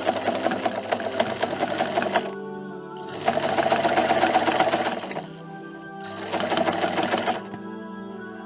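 Ambient synth music with held tones, overlaid by three bursts of a rapid, dense mechanical chattering sound effect. The bursts last about two seconds, two seconds and one second.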